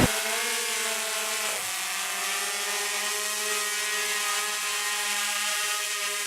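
Motors and propellers of a DJI Phantom 2 quadcopter whining while it hovers, as picked up by the GoPro camera it carries. The pitch dips briefly about one and a half seconds in, then holds steady.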